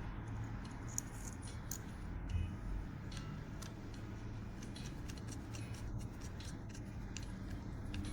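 Scattered light metallic clicks and taps of a folding knife's titanium handle parts and washers being handled and fitted together during reassembly, over a low steady hum.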